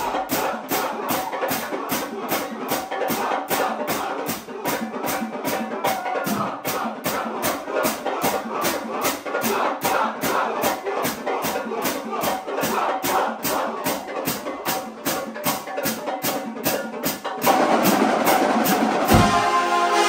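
Marching band brass (sousaphones, trombones and trumpets) playing in a band room over a steady beat of about two and a half hits a second. About three-quarters of the way through the full band gets louder, ending on held chords.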